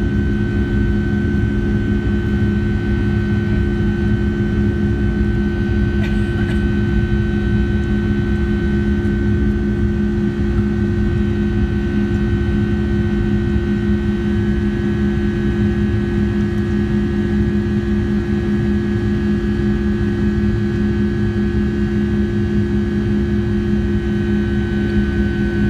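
Jet airliner engines running with a steady, unchanging drone and constant humming tones.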